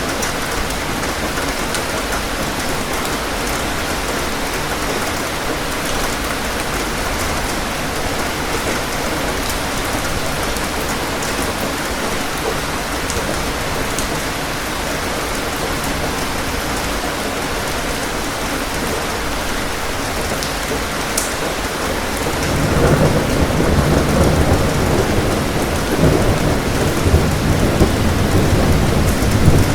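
Steady rain falling as an even hiss. About three quarters of the way through, a low rolling rumble of thunder sets in and grows louder.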